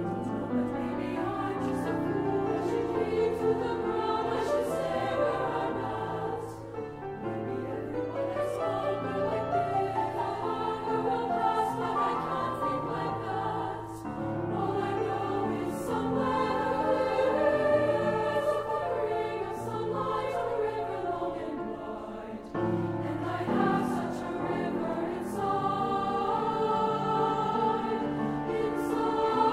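High school treble choir (SSAA) singing in parts, accompanied by piano. The sound drops back briefly about two-thirds of the way through, then comes in fuller again.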